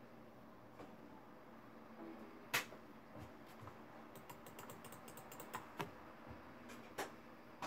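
Scattered sharp clicks and light knocks from hands working on a desktop computer and its cables. There is one sharp click about two and a half seconds in, a quick run of small clicks in the middle, and another click near the end.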